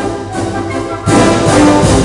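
Orchestral music with brass, a loud full chord coming in about a second in.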